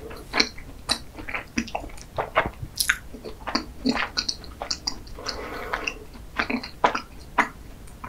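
Close-miked chewing of a soft pastry filled with chocolate cream: wet mouth clicks and smacks at irregular intervals, with a denser, squelchier stretch a little past the middle.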